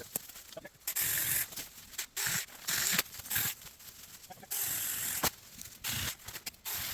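Saker mini battery chainsaw cutting into a maple stem in short bursts, a harsh rasping hiss that starts and stops abruptly about five times.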